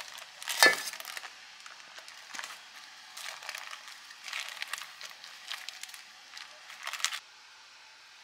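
Parchment paper crinkling and rustling in irregular bursts as it is pulled and peeled open around a baked cheesecake, with a sharp clink about half a second in as the cake is lifted from its metal tin.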